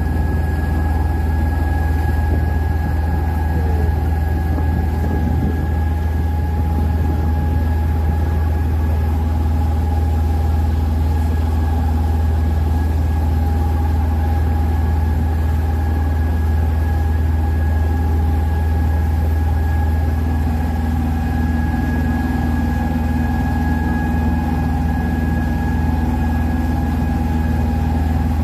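Small passenger boat's engine running steadily under way, heard on board: a constant low drone with an even whine above it.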